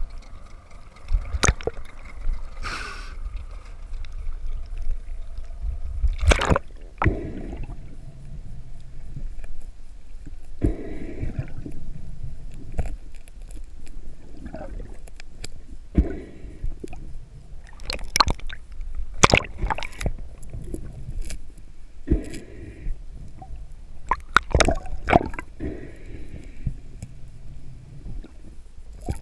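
Water sloshing and gurgling around a camera at and just under the sea surface, with a steady low rumble. Sharp clicks and knocks come every second or two as the speared fish and the metal spear shaft are handled.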